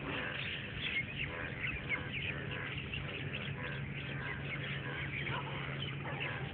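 Many birds chirping at once in a dense chorus of short, overlapping calls, over a steady low hum.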